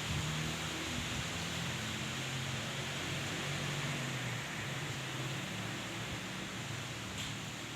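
Steady rush of strong wind with light drizzle, with a faint low hum underneath.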